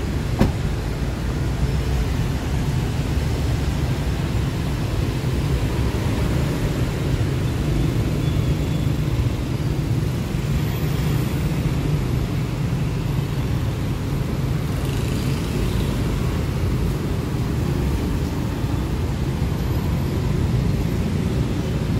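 Steady low rumble of road traffic, with a single sharp thump of a car door being shut about half a second in.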